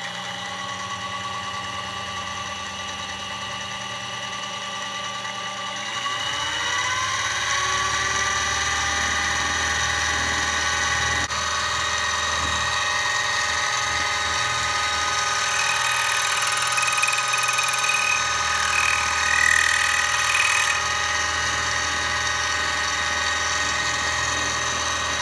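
Harbor Freight mini milling machine running, a steady motor whine as its quarter-inch carbide end mill cuts a flat spot on a pen under hand feed. About six seconds in the whine rises in pitch and grows louder, and a harsher, higher cutting noise comes in for a few seconds past the middle.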